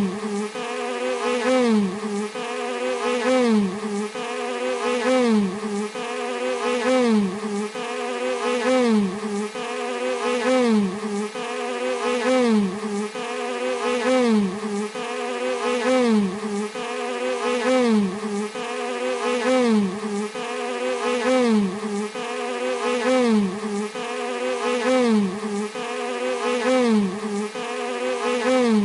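Bee buzzing continuously, a short recording looped so that the buzz swells and its pitch dips about once a second, used as a tinnitus masking sound.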